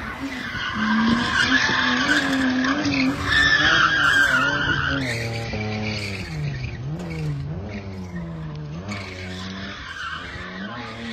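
Drift car sliding with its tyres squealing loudly and the engine held high in the revs, its pitch rising and falling as the throttle is worked. The squeal fades after about five seconds, and the engine keeps revving up and down, growing quieter as the car moves away.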